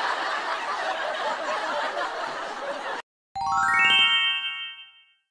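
A dense, busy din that cuts off suddenly about three seconds in. A moment later a quick rising run of chimes, a transition sound effect, rings and fades.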